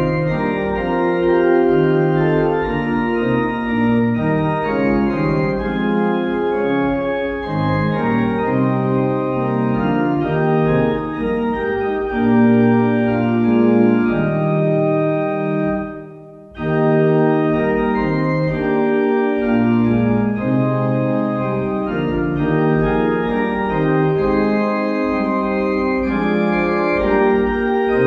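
Organ playing a hymn tune in slow, held chords, with a brief break about sixteen seconds in between lines.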